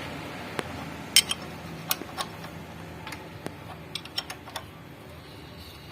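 Scattered light metallic clicks and ticks of hand tools on the engine, at irregular intervals, over a faint steady hum, as the engine is turned over by hand to check the timing belt marks.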